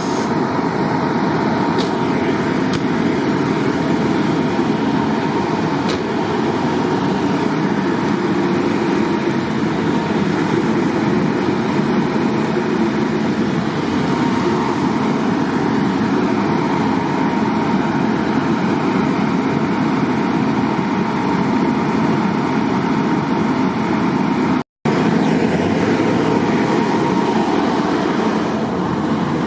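Steady road traffic noise, cars and their tyres hissing on rain-wet pavement in an even wash of sound. The sound cuts out completely for an instant near the end.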